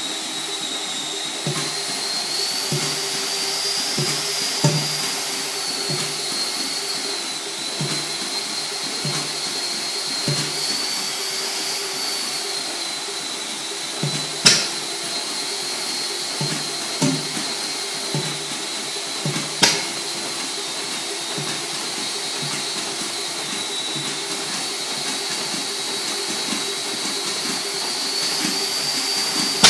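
A handheld electric drill whines steadily as it spins a restored Bentall Kangaroo stationary engine over through a shaft on its crank to start it. Irregular low thuds come from the engine about once a second as it turns over.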